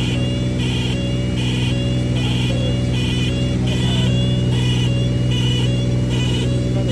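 Steady drone of the Cessna 310R's piston engine heard inside the cabin. Over it, a high cockpit warning tone pulses on and off about every three-quarters of a second.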